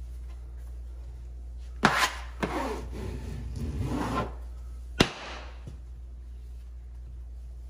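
A plastic wallpaper smoother scraping across grasscloth wallpaper to press it flat and work out wrinkles. A sharp tap, then about two seconds of raspy rubbing strokes, then a second sharp tap.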